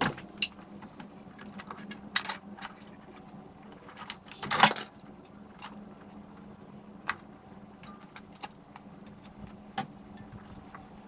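Scattered clicks and rattles of vacuum hoses, fittings and small parts being pulled off an engine and handled, with a louder clatter about four and a half seconds in. A faint steady hum runs underneath.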